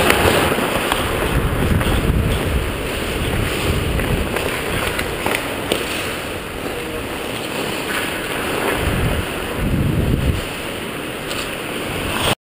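Ice hockey skates scraping and carving on the ice, with air rushing over the helmet camera's microphone as the skater moves, and a few sharp clicks of sticks or puck. The sound cuts off suddenly near the end.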